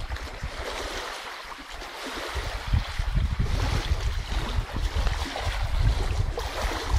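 Wind rumbling on the microphone over small waves lapping at a lake shore.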